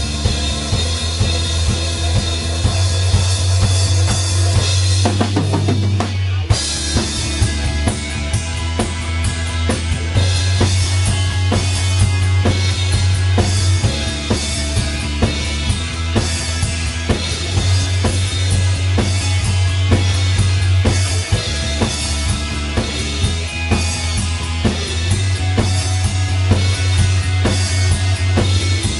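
Rock band playing live without vocals: drum kit keeping a steady beat under electric guitars with heavy sustained low notes. A falling slide in pitch comes about five seconds in, followed by a brief break.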